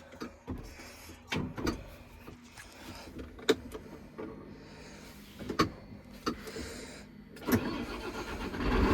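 Clicks and knocks of switches and controls inside a tractor cab, with a faint steady hum in the middle, then the tractor's engine starting with a low rumble at the very end.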